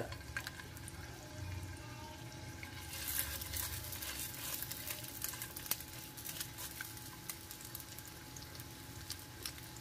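Chicken kebabs frying in shallow oil in a nonstick pan: a faint, steady sizzle with small crackles. The crackling grows livelier about three seconds in, as another raw kebab is laid into the hot oil.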